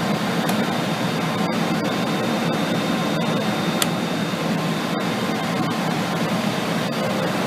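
Cooling fans of a Cisco 2821 router running with a steady whir and a faint whine, with a couple of tiny clicks.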